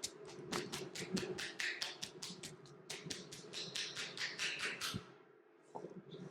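Rapid, even hand taps of a head massage, about seven a second, stopping about five seconds in; soft rubbing begins near the end.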